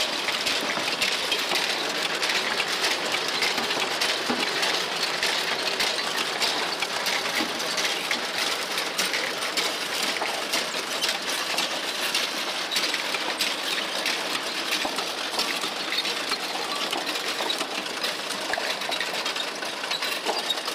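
Automatic bottle-labeling machine running steadily, its conveyor carrying glass jars, with many small clicks and clinks of glass throughout.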